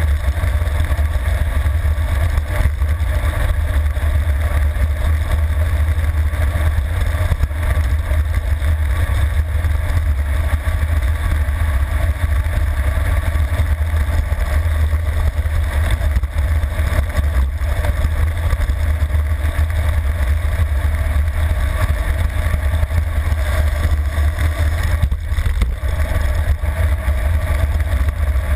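Wind rushing over the microphone of a handlebar-mounted camera on a road bike rolling downhill at speed: a steady, loud, deep rumble with no breaks.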